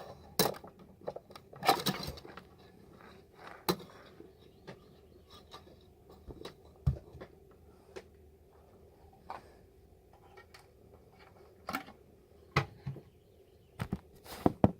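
Irregular clicks, knocks and light rattles of hands working a small plastic humidifier out through a tight hanging cage to refill it.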